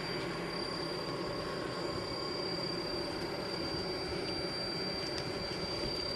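A steady humming drone with a thin, constant high whine held above it, carrying from a distant source. It is loud and unbroken, and the listener calls it horrific.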